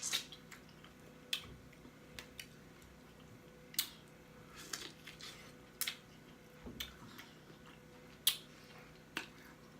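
Close-miked eating sounds: sharp, wet lip smacks and pops, about a dozen spaced irregularly, with quieter chewing in between.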